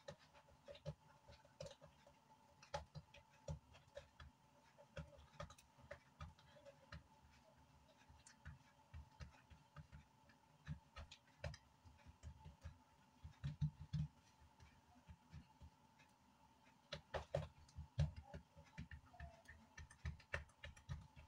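Hands pressing and patting oiled dough out thin on a granite countertop: a run of soft, irregular pats and light taps.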